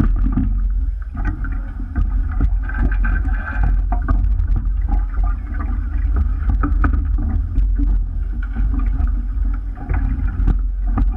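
Rowing shell under way with its crew rowing: a steady low rumble of water and wind on the boat-mounted camera, overlaid with irregular clicks and knocks from the oars working in their gates.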